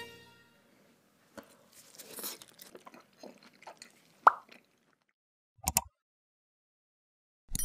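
Close-up eating sounds of a person biting and chewing steak: soft wet smacks and crackles, with one short sharp pop about four seconds in. A brief loud hit follows, and a bell-like ding begins right at the end.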